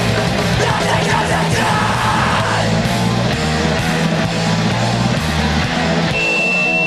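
Straight-edge hardcore punk band playing fast, with distorted guitar, bass and drums and shouted vocals. A thin, high, steady tone sounds near the end.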